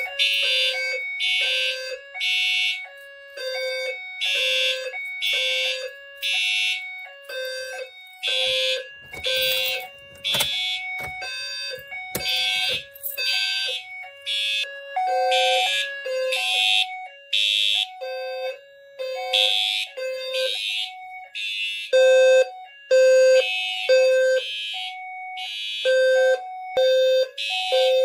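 Several fire alarm notification appliances sounding together in the code 3 temporal evacuation pattern: a buzzy horn and electronic tone appliances at two pitches, their pulses overlapping slightly out of step. This is a general alarm set off by a manual pull station.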